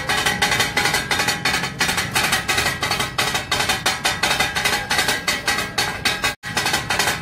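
Percussive intro music with a fast, steady beat of sharp strikes. It breaks off for a moment about six seconds in.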